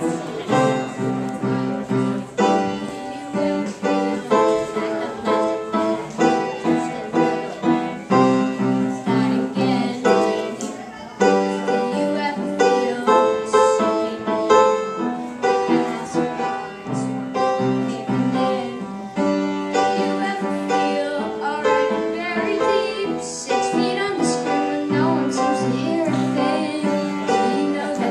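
Piano playing repeated chords in a steady rhythm, about two strokes a second.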